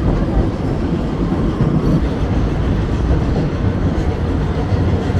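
Moving steam-hauled train heard from aboard a passenger carriage: a steady, loud rumble of the running train, with wind buffeting the microphone.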